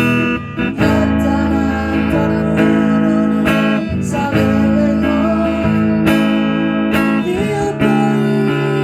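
Acoustic guitar strummed and picked, with an amateur voice singing along.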